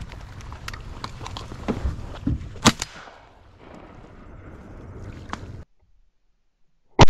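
A shotgun firing at flying ducks: a very loud blast starts right at the end, after about a second of silence. Before that there is steady rustling and knocking of movement in dry marsh grass, with one sharp crack near the middle.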